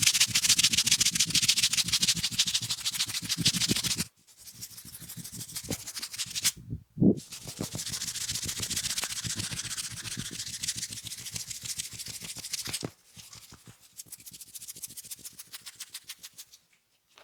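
Fingers scratching and rubbing rapidly over hair and scalp during a head massage: fast, dense strokes in several stretches that stop briefly and start again, with one short low knock about seven seconds in.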